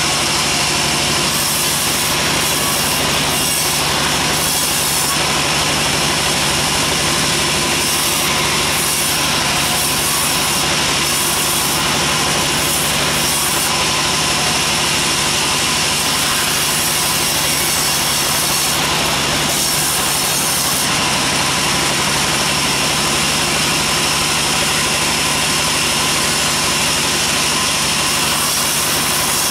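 Large sawmill bandsaw running steadily while its blade cuts lengthwise through a teak log that is pushed along the table. The level stays even, with no breaks.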